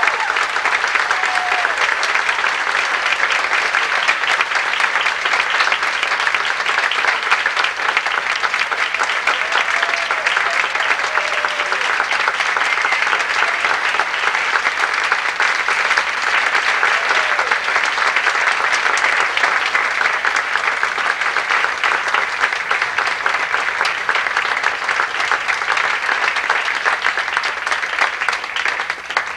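Theatre audience applauding steadily after a stage performance, with a few brief whoops rising above the clapping.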